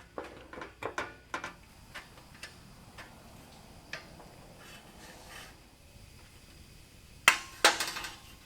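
Metal clamps being handled and set on a sheet-metal patch panel: a quick run of small metallic clicks and clinks, a few single ticks, then two sharp metal clanks near the end.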